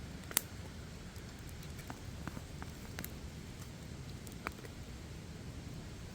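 Wood campfire crackling: scattered sharp pops, the loudest about half a second in, over a steady low rumble.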